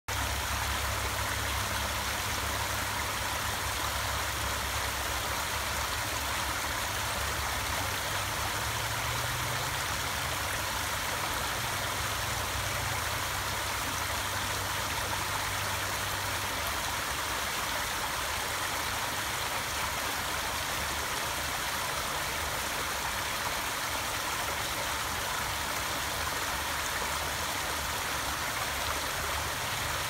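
Shallow creek water flowing over rocks: a steady, even rushing, with a low rumble underneath.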